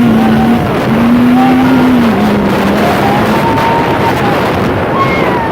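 Yamaha YXZ1000R side-by-side's three-cylinder engine running hard under acceleration, its note dropping in pitch about two seconds in, over a loud steady rush of wind and ground noise.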